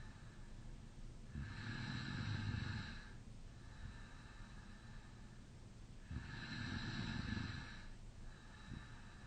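A sleeping person snoring with the mouth slightly open. There are two long, loud snoring breaths about five seconds apart, each a low rattle over a hiss of air, with quieter breathing between.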